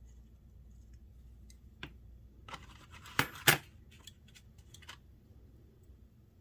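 Small metal knife parts and tools clicking against each other and the bench as a folding knife is reassembled: a scattering of light ticks, with two sharp clicks close together about three seconds in.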